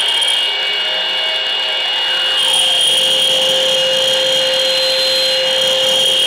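Steady, machine-like noise drone with a mid-pitched hum and several high whistling tones.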